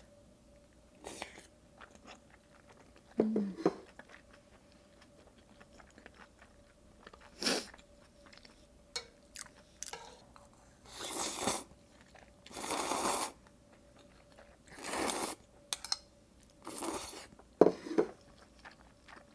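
Close-miked eating sounds: chewing with sharp wet mouth clicks, and several slurps of instant noodles, each about half a second long, in the second half.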